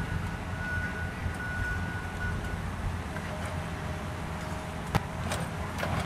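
Steady low outdoor rumble, with a faint steady high whine through the first half and a single sharp click about five seconds in.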